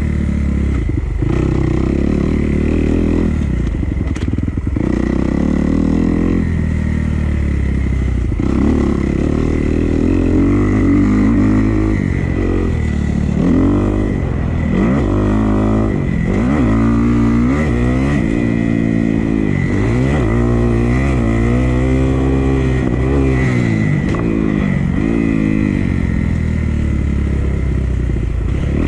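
Dirt bike engine revving as it is ridden, its pitch rising and falling again and again with the throttle and gear changes, most busily through the middle of the stretch.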